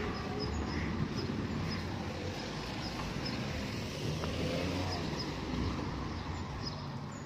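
Steady outdoor background noise with a low rumble, as of street traffic, and faint short high chirps repeating through it.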